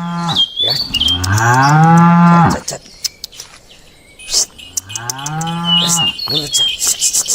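Cattle mooing: one moo trails off just after the start, then two long moos follow, about a second in and about four and a half seconds in, each rising in pitch and then held. High chirps and ticks sound between the moos.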